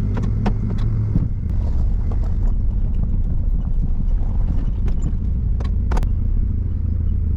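Ford F-series pickup engine running at a steady idle, with a few short clicks and knocks over it.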